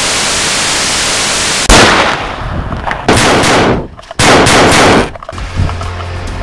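Steady TV-static hiss that cuts off about a second and a half in with a loud crack, followed by two longer bursts of gunfire. The gunfire gives way to quieter rustling near the end.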